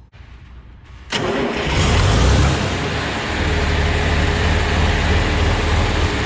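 John Deere 4020 tractor's six-cylinder engine starting: it catches suddenly about a second in, is loudest for a moment, then settles into steady running. This is the first good start after a bad battery-cable connection was cleaned up.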